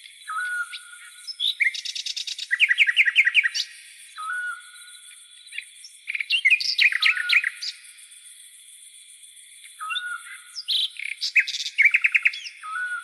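Tropical forest birds singing in three bouts, each starting with a short low whistle and running into fast chirping trills. A steady high-pitched insect hum of crickets sits underneath.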